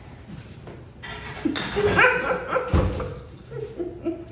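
A woman's muffled, excited cries of delight through a mouthful of food: a few short cries that slide up and down in pitch, with a dull thump about three seconds in.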